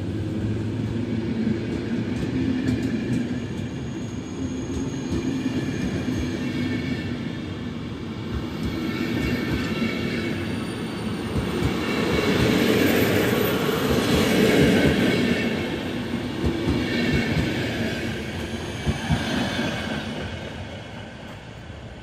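PKP Intercity passenger coaches rolling past, wheels clicking over the rail joints with a high wheel squeal. The sound is loudest about two-thirds of the way through and fades near the end as the last coach pulls away.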